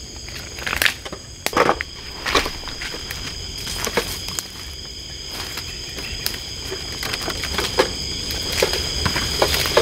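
Footsteps crunching irregularly through leaf litter and undergrowth on a jungle trail. Behind them runs a steady high-pitched chorus of night insects.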